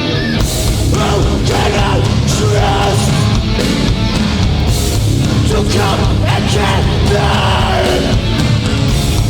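A live hardcore band plays loud and heavy, with distorted guitars, bass and drums. The drums and cymbals come crashing in a moment after the start.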